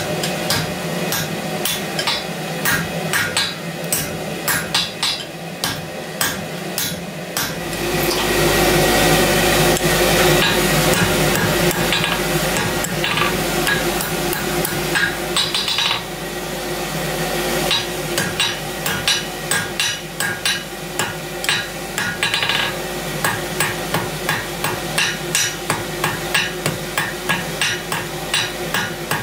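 Blacksmith's hammer striking red-hot round steel bar on an anvil, forging the bit of a pair of flat-bit tongs: a run of blows, steady at about two a second in the last ten seconds. A steady rushing noise runs under the blows from about eight to seventeen seconds in.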